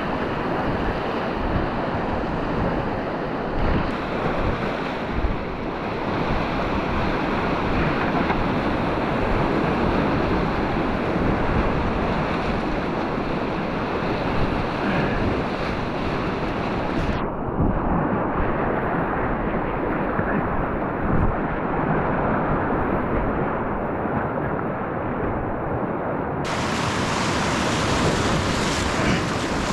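Whitewater rapids on a river running high after heavy rain, rushing steadily and loudly around a packraft.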